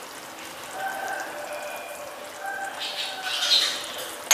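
Thick oyster-sauce-based stir-fry sauce bubbling and popping in a small saucepan as a silicone spatula stirs through it.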